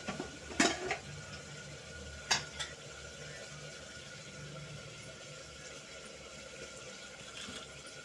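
Two sharp metal knocks of cookware being handled on the stove, then a steady low hiss and hum from the lit gas burner and the pot heating on it.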